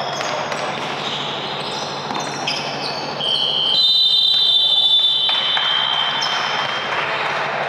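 Basketball game sounds: sneakers squeaking on the court at many pitches, with ball bounces. A steadier high squeal lasts about two seconds in the middle.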